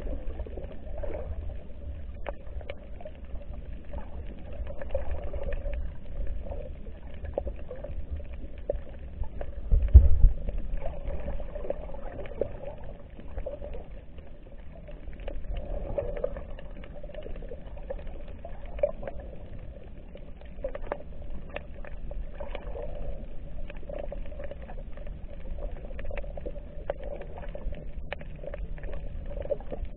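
Muffled underwater sound heard through a camera's waterproof housing: a low rumble of moving water with many faint scattered clicks, and a deep thump about ten seconds in.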